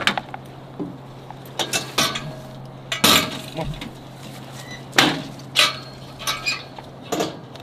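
Keys and a metal latch clicking, then a stainless steel kennel compartment door and its barred gate clanking as they are unlocked and swung open. An irregular series of sharp metallic knocks and clinks, loudest about three seconds in and again about five seconds in.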